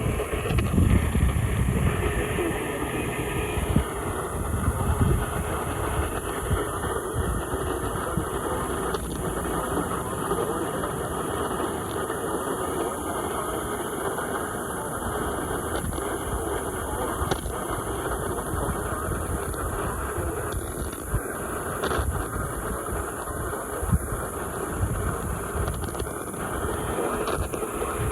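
Steady hiss and rumble of radio static from a receiver, with a few faint clicks scattered through it.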